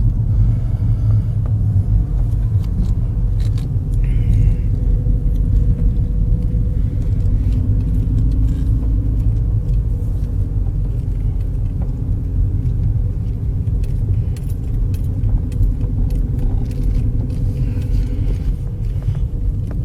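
A car heard from inside the cabin: steady low engine and road rumble with a faint even hum, and scattered light clicks and rattles.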